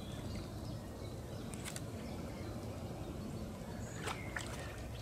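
Quiet lakeside ambience: a steady low rumble of wind on the microphone, with a couple of faint short knocks or splashes and a brief bird call about four seconds in.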